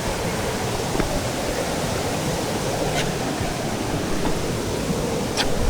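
Waterfall: a steady, loud rush of falling water, with a few faint clicks.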